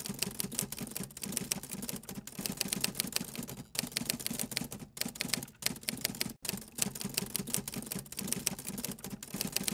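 Typewriter typing sound effect: rapid key clacks in quick succession, broken by a few brief pauses around the middle.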